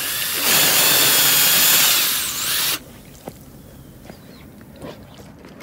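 Ryobi half-inch-chuck power drill running at full speed with a high whine, spinning a paint-mixer paddle used as a propeller and churning the water, for about three seconds before it drops away sharply. The small propeller gives almost no thrust.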